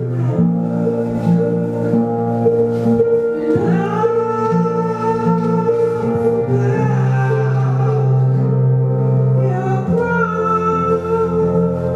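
Music with slow, sustained tones and held bass notes, with a sliding pitch about four seconds in.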